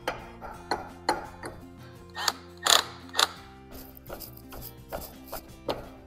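Repeated sharp metallic clicks, two or three a second, of a steel bar levering against screw heads driven into a roller's seal to pull the seal out. Background music plays underneath.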